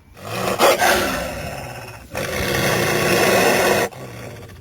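Wolves growling and snarling in two long stretches, the second breaking off suddenly near the end.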